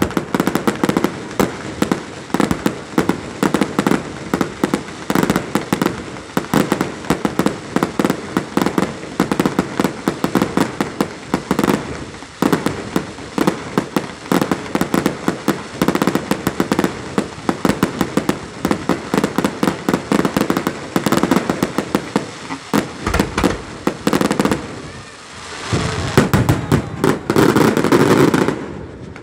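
Fireworks display: a rapid, continuous barrage of bangs and crackling from aerial shells and ground fountains, with a stretch of heavier, deeper booms near the end.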